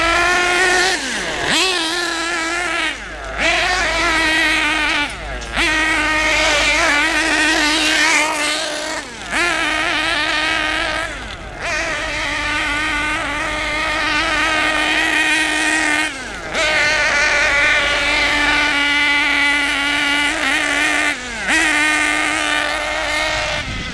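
A Kyosho MP9 buggy's KE21 two-stroke nitro engine runs at high revs, holding a steady pitch for long stretches and dropping briefly off the throttle about six times. It is running rich because the high-speed needle keeps backing itself out, which the owner puts down to a worn O-ring seal on the needle.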